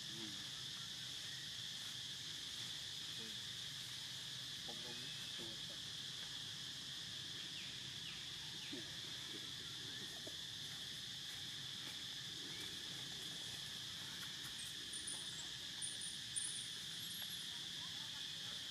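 A steady, high-pitched drone of insects, with a few faint short high chirps near the end.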